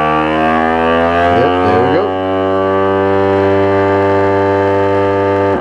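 Countertop vacuum sealer's pump running with a steady, loud hum as it draws the air out of a plastic bag, then cutting off suddenly.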